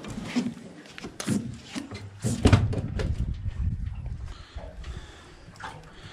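Handling noise from a fish being unhooked by hand from a multi-hook line: scattered knocks and rustles, with the loudest thud about two and a half seconds in.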